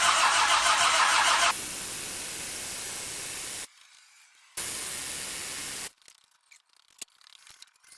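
Land Rover Defender TD5 diesel engine cranking on the starter with a rhythmic beat, without firing, and stopping about a second and a half in. The engine will not start because it is not getting fuel. Then come two bursts of steady hissing, the first about two seconds long and the second about a second, followed by a few faint clicks.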